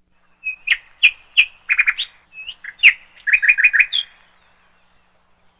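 A quick run of about a dozen short, high, bird-like chirps, some in fast groups of three or four, ending a little after four seconds in. They sound like a clean intro sound effect, with no background noise behind them.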